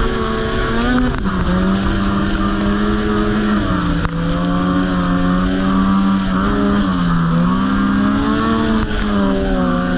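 Snowmobile engine running at trail-riding speed, heard from the rider's seat. Its note drops briefly about a second in, again near four seconds and near seven seconds as the throttle eases, and picks back up each time.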